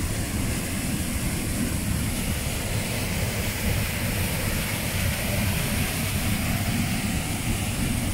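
Steady rushing roar of a waterfall pouring into a river pool, with a deep rumble underneath and no breaks.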